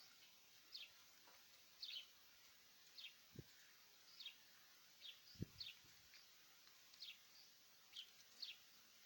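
Faint short, high, falling peeps from chicks, roughly one a second, with two soft low thumps in the middle.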